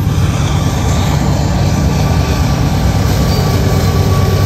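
Freight train passing close by: flatcars rolling over the rails with a steady low rumble, joined near the end by the running engine of a mid-train diesel locomotive as it draws alongside.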